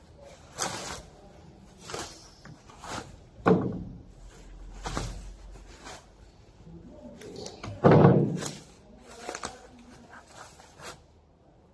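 Plastic wrapping rustling and crinkling in short bursts as it is pulled off a metal bar. There are two dull knocks, one about three and a half seconds in and the loudest about eight seconds in.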